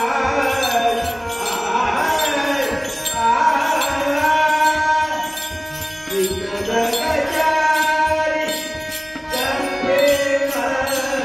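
An elderly man singing a Marathi abhang, a devotional song, in long held and bending phrases, with small metal cymbals clinking in a steady rhythm.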